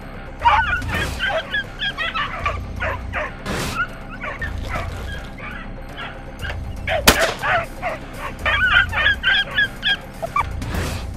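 Hunting dogs giving tongue in rapid bursts of high yips and barks, the baying of dogs hunting rabbit. A single sharp crack sounds about seven seconds in.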